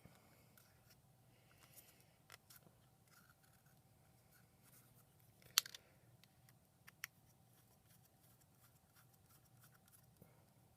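Near silence with a few faint, scattered clicks and light scrapes, the sharpest click about five and a half seconds in: the small plastic and metal parts of a vape box mod being fitted back together by hand.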